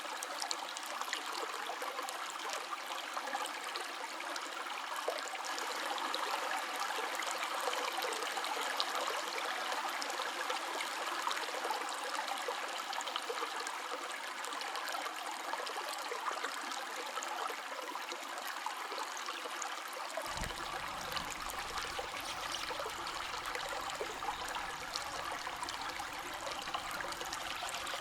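River water flowing in a steady rush, with a low rumble coming in suddenly about twenty seconds in.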